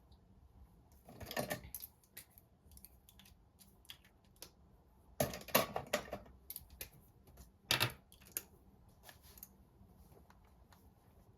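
Note taking at a desk: scattered sharp clicks and scratches, in three louder bursts about a second in, around five and a half seconds in, and near eight seconds, over a faint low background rumble.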